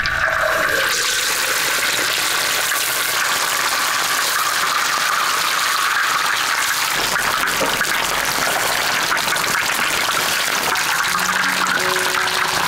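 A whole fish sizzling and crackling steadily in hot oil in a large iron wok as oil is ladled over it.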